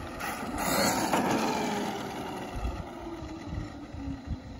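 Traxxas Maxx RC monster truck's brushless electric motor on 4S LiPo power whining as the truck drives off on wet pavement. A rushing burst comes about a second in, then the whine falls steadily in pitch.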